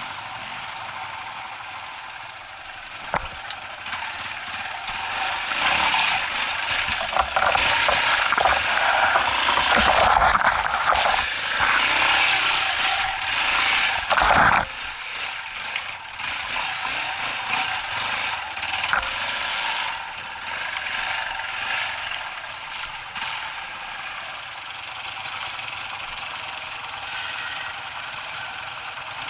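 Trail motorcycle engine running, pulling harder and louder for several seconds in the middle before dropping back abruptly, with mechanical rattling and scraping over it. There is a single sharp knock about three seconds in.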